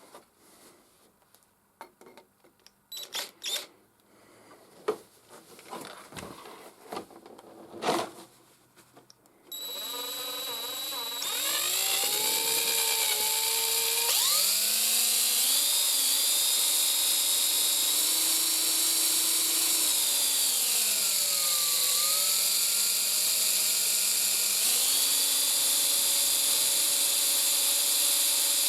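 A few light clicks and knocks of handling, then an electric power-tool motor starts about a third of the way in. It runs up in speed with a whine, holds steady, slows for a couple of seconds and then speeds up again.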